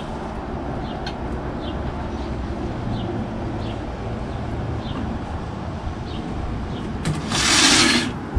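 A steady low outdoor rumble, then about seven seconds in a sliding glass balcony door is pushed open: a loud rush of noise lasting about a second, ending in a sharp knock.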